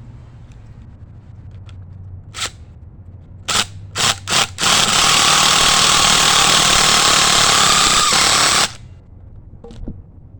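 Impact driver driving a hex-head Tapcon screw through the tabletop into the pedestal: a few short trigger bursts, then about four seconds of continuous hammering that stops suddenly. The screw ends up sitting a little high and spinning in its hole.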